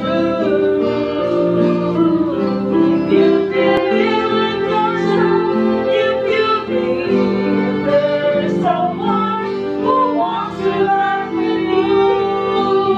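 Violin played live, bowing a melody with some sliding notes.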